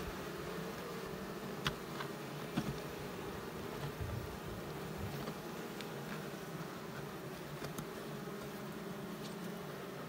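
A mass of Asian honey bees (Apis cerana) buzzing steadily on the exposed combs of their hive during a honey harvest. A few light clicks come about two seconds in and again near eight seconds.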